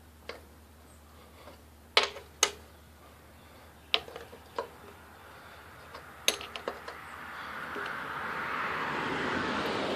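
Wrench and steel bolts clinking against the mower's metal as the carburetor is unbolted: sharp metallic clicks, a few seconds apart. A steady hiss swells in over the last couple of seconds.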